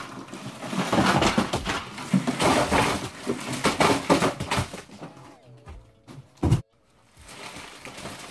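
Plastic-wrapped snack packages and a cardboard box rustling and crinkling as the snacks are tipped out onto a bed and handled, with one sharp thud about six and a half seconds in.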